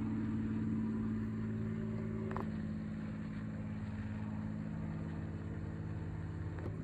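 A motor running with a steady low hum, with one faint click about two and a half seconds in.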